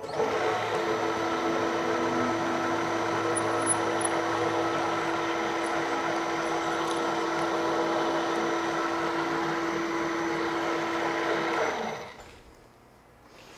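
Milling machine motor and spindle running steadily with a fixed hum, then switched off about twelve seconds in and winding down.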